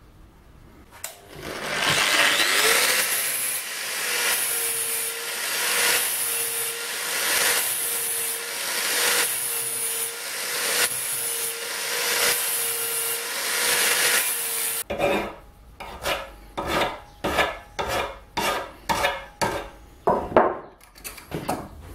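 Angle grinder grinding steel, its sound dipping about once a second as the disc is worked over the metal. It stops sharply about two thirds through, followed by about a dozen quick rasping strokes of a file on the metal tube, roughly two a second.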